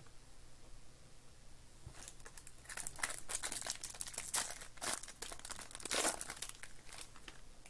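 Foil wrapper of a baseball card pack being torn open and crinkled by hand. A crackling rustle starts about two seconds in and dies down near the end.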